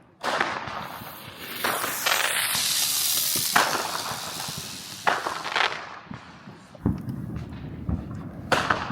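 Small spinning ground fireworks going off: a sudden start followed by a loud hiss lasting a few seconds, with sharp pops and cracks scattered through it and a few more afterwards.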